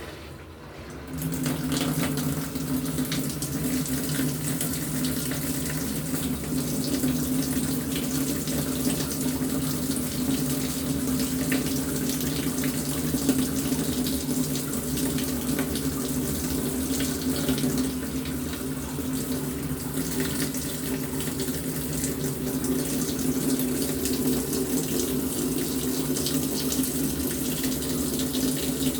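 LG top-loading washing machine filling with water: the inlet valve clicks open and water pours steadily into the tub over a low steady hum.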